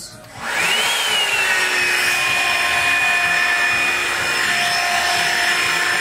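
Revlon Perfect Heat Perfectionist 2-in-1 hot-air brush dryer starting up on the setting above cool: about half a second in its motor spins up with a rising whine that peaks and settles slightly lower, then runs steadily with a strong rush of air.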